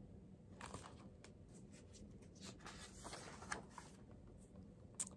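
Faint paper rustling and crinkling with a few soft clicks as the pages of a picture book are handled and turned, mostly in the first four seconds, then one sharper click near the end.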